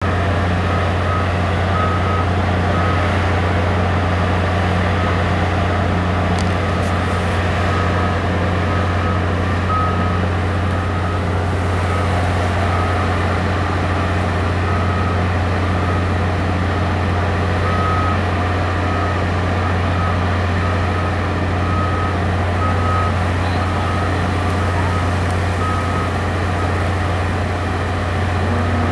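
A heavy engine runs with a steady low drone, while a backup alarm beeps at a regular pace, about three beeps every two seconds, pausing for a few seconds midway.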